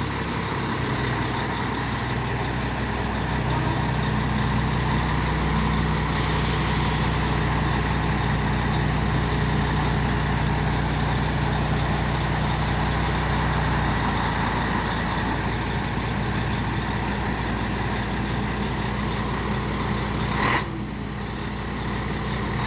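Diesel truck engine running with a broken exhaust as the truck pulls away slowly, heard from inside the cab; the engine note strengthens for several seconds and then settles. A short loud burst of noise comes near the end.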